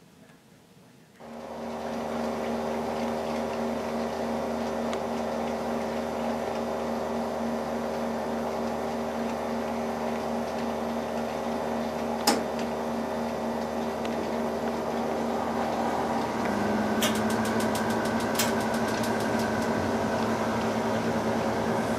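A steady mechanical hum made of several even tones, starting about a second in, with one sharp click near the middle and a quick run of light ticks near the end.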